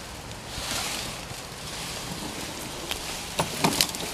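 Brush and leaves rustling and scraping as a Coleman 15-foot canoe is dragged and lifted out of overgrown bushes, with a few sharp knocks of the hull near the end.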